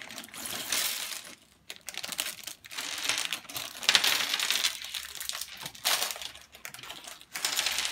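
Clear plastic Lego parts bags crinkling as they are handled, with small plastic Lego bricks clattering onto the table as they are tipped out.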